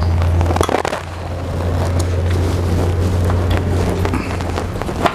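BMW K100's four-cylinder engine idling with a steady low hum that dips briefly about a second in, with small clicks and taps of parts being handled at the fuel tank.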